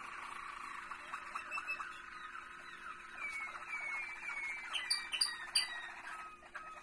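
Caged domestic canaries singing: a continuous run of rolling trills and chirps, with three sharp high notes about five seconds in, the loudest part.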